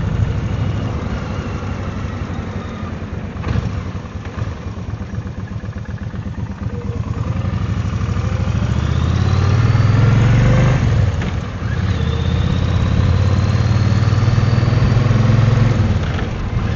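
Kawasaki VN 1500 Drifter's V-twin engine running under way, lower from about four to seven seconds in. About eight seconds in it picks up with a rising pitch, dips briefly near eleven seconds, then runs on steady and louder.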